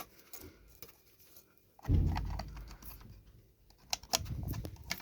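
Small plastic clicks and rattles as a step-down converter's plastic case and fuse holder are handled, with a dull bump about two seconds in and another cluster of clicks near the end.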